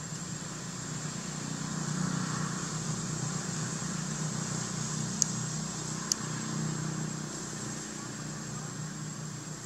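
A low engine-like hum that swells about two seconds in and slowly fades, under a steady high-pitched whine. Two sharp clicks come about five and six seconds in.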